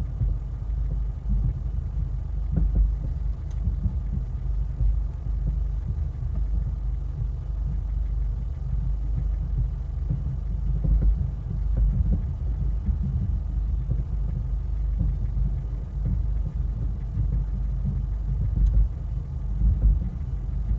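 Distant New Year fireworks booming, heard as an irregular low rumble with uneven swells, and a few faint cracks now and then.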